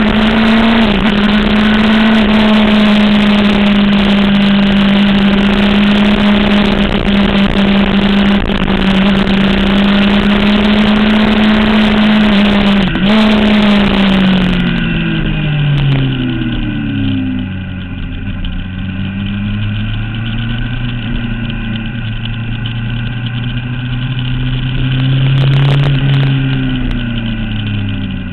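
Sport motorcycle engine held at steady high revs under heavy wind noise, with a brief dip in pitch about halfway. The revs and the wind then fall away over a few seconds as it slows, and the engine runs on at lower revs before easing off again near the end.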